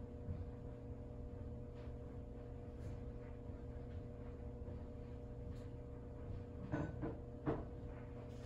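A steady low hum, with two or three short knocks or creaks near the end.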